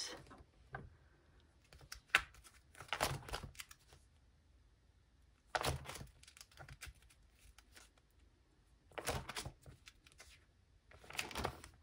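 Plastic photocard binder sleeves crinkling and rustling as the binder's pages are turned, about four page turns with short quiet gaps between them.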